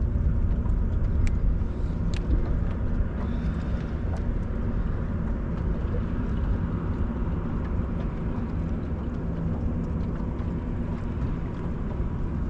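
A boat's motor running steadily at low speed, a constant low rumble with a few faint ticks over it.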